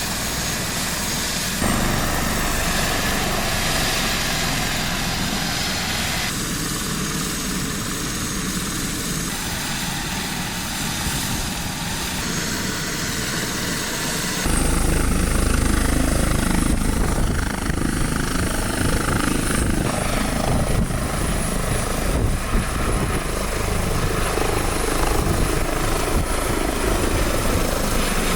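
Airbus H145 helicopter, its rotor and twin Safran Arriel 2C2 turboshaft engines running. The sound shifts abruptly in tone several times, as between separate recordings.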